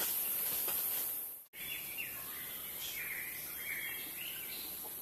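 Outdoor forest ambience with a steady high hiss. After an abrupt cut about a second and a half in, birds chirp with short, repeated calls.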